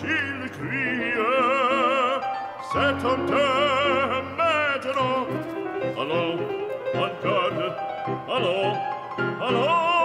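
Background music: an opera aria, a solo singer with strong vibrato over instrumental accompaniment.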